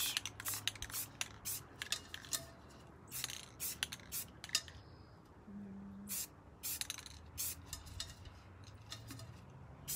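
Aerosol can of Rust-Oleum khaki spray paint sprayed in many quick, short spurts, each a brief hiss, with a short pause about halfway through.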